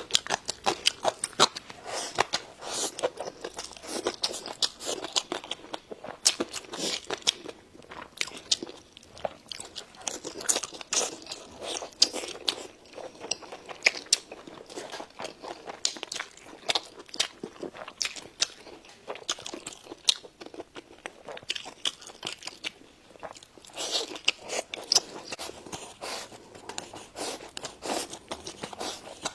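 Close-up, crisp crunching and chewing of pickled radish strips, with rapid crackly bites several times a second.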